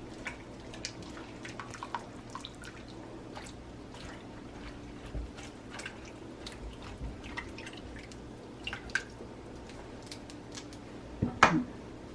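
Small water drips and pops ticking irregularly over a steady low hum, from the boiled amaranth greens and their hot water. A louder knock or splash comes near the end.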